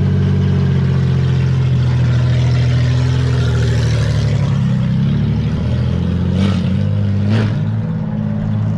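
1972 Datsun 240Z's freshly rebuilt inline-six running steadily at a loud, even idle, with two sharp cracks about a second apart near the end. Its carburettors probably still need balancing against each other.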